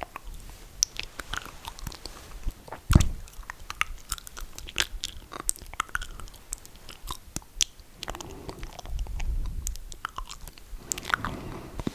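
Close-miked mouth sounds: wet, irregular clicks and lip smacks, with a heavier thump about three seconds in and a softer, low rush of air around nine seconds in.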